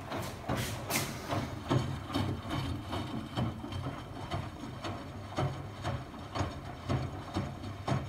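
Miele washing machine mid-wash on a 95-degree cycle: the drum turning, with wet laundry and water sloshing in irregular swishes and soft knocks over a low rumble.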